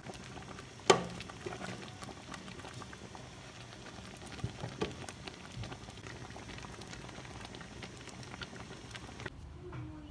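Pot of oha soup simmering, with a steady bubbling hiss and many small bubble pops, and a sharp click about a second in. The bubbling drops away near the end.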